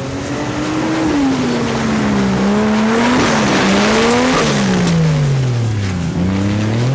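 Off-road 4x4's engine revving hard, its pitch rising and falling several times as the throttle is worked, with a rush of noise about three to four seconds in.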